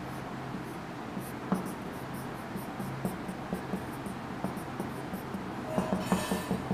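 Marker pen drawing on a whiteboard: a run of short, irregular scratching strokes as lines are hatched in, with a longer, louder stroke about six seconds in.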